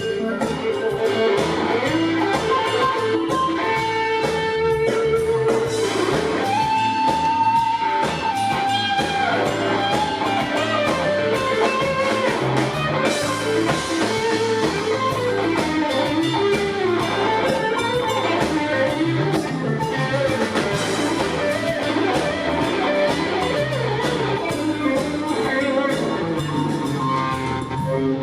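Live blues-rock band playing an instrumental break: a lead electric guitar solo with held, bending notes over bass and drums.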